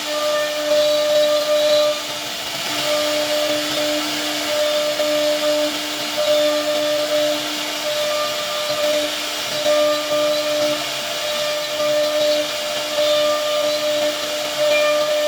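CNC router spindle running with a steady high whine, cutting wood, the tone dipping briefly and returning about once a second as the cutter moves through its passes.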